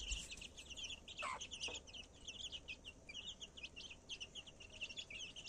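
A brood of chicks peeping in rapid, high-pitched chirps, with a lower cluck from the mother hen about a second in.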